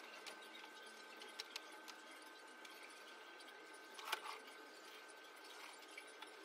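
Quiet room with faint handling noises as baby clothes are sorted and a dresser drawer is worked, with a short clatter about four seconds in, over a faint steady hum.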